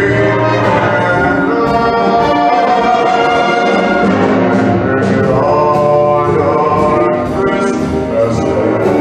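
A wind band playing, with brass to the fore in full, sustained chords.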